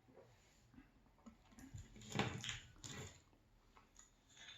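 Faint close-miked mouth noises of someone eating spicy pizza: chewing, smacking and breathing, with a few louder ones about two to three seconds in.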